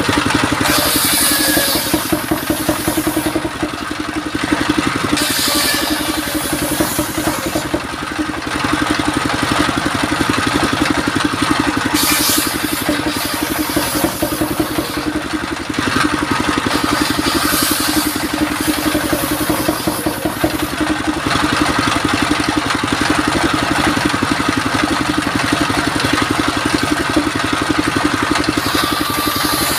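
Stationary engine running steadily, driving a circular saw through belts and pulleys. Several times the spinning blade cuts into mahogany boards, each cut a brief burst of high hiss over the engine.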